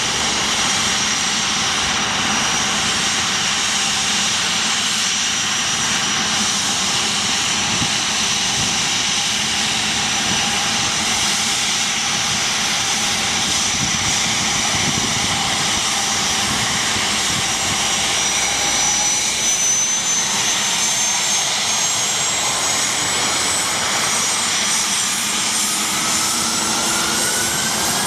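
Dassault Falcon 7X's three Pratt & Whitney Canada PW307A turbofan engines whining steadily at taxi power. In the last few seconds the whine starts to rise in pitch as the engines spool up for takeoff.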